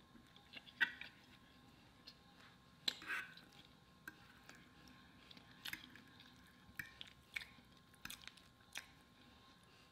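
A person chewing food quietly, with scattered short clicks and taps, some from a metal fork working through food on a plate.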